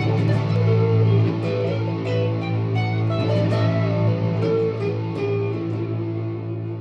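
Electric guitar playing a single-note melodic line over a held low note.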